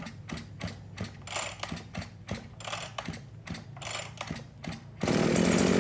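Kawasaki TGX23 two-stroke brush cutter being pull-started: rapid ratcheting clicks from the recoil starter through several short pulls, then the engine catches about five seconds in and runs loudly and steadily.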